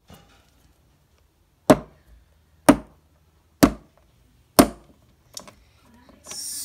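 Four sharp taps about a second apart: a small plastic doll knocked on a hard dollhouse floor as it is walked along.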